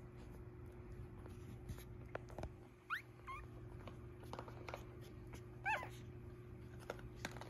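Newborn Cavalier King Charles Spaniel puppies squeaking while nursing: a short rising squeak about three seconds in, then a louder, wavering cry near the six-second mark, with faint suckling clicks between.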